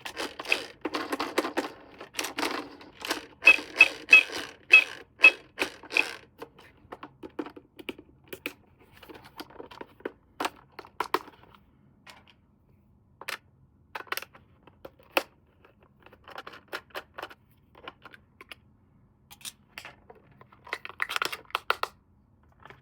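Irregular clicking, tapping and rustling of packaging and a toy being handled, busy and loud for the first six seconds, then sparser clicks, with another brief flurry near the end.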